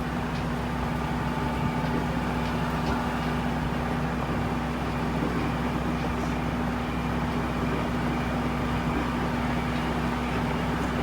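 Tractor engine running with a steady, even hum as it pulls a wagon.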